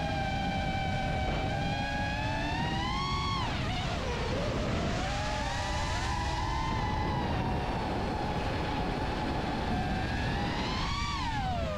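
Emax Babyhawk II HD 3-inch FPV quadcopter's brushless motors and propellers whining in flight, heard from the GoPro mounted on it. The pitch holds steady, climbs with a throttle punch about three seconds in, then drops sharply, and climbs and falls again near the end. A low rush of wind on the microphone runs underneath.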